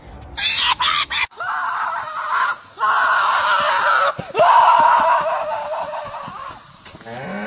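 A few short, sharp cries in the first second, then a horse giving long, rough, scream-like calls, three in a row with brief breaks, over about five seconds.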